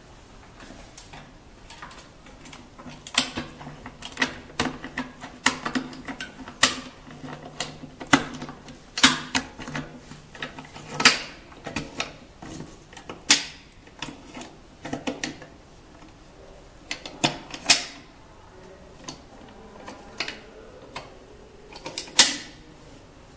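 Irregular metal clicks and knocks from a manual screen printing press as its aluminium screen frame and clamp registration adjusters are handled and adjusted, over a faint low hum in the first half.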